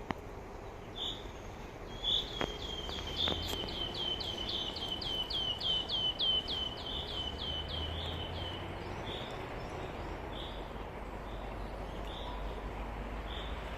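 A songbird singing: a long run of about twenty quick, high, downward-slurred notes, about three a second, followed by scattered single notes, over a steady low background rumble.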